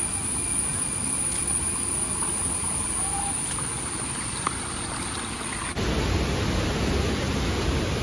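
Steady rush of water from a rocky forest stream, with a thin high steady whine over it; about three-quarters through, the sound cuts abruptly to a louder, fuller rush and the whine stops.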